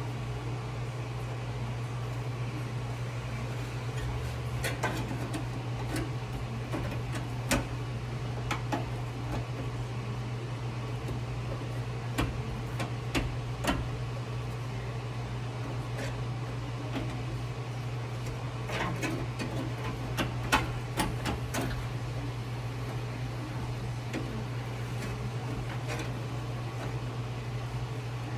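Irregular light taps and clinks of a sheet-steel patch panel being worked and shaped by hand, over a steady low hum.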